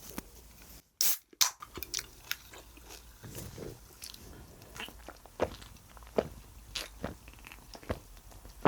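A person eating close to the microphone: chewing and biting, with a string of sharp irregular clicks and crunches, the loudest about a second in.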